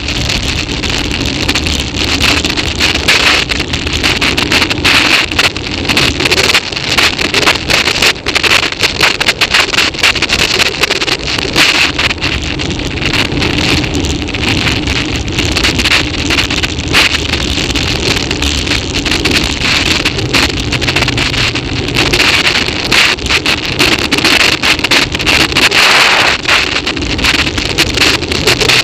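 Heavy wind buffeting on the camera's microphone, loud and fluttering without a break, from riding a bicycle fast downhill.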